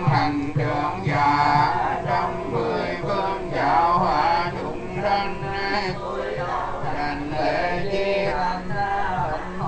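Buddhist liturgical chanting in Vietnamese, sung in a melodic line, with a regular low beat underneath.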